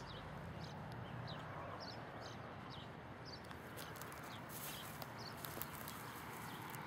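Quiet outdoor background: a steady faint hiss with short, faint bird chirps every second or so and soft footsteps on grass.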